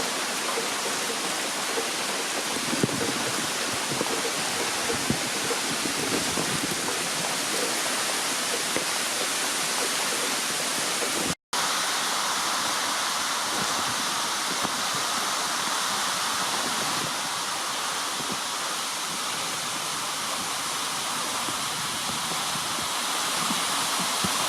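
Waterfall: a steady rush of falling water, broken once about halfway through by a momentary drop to silence.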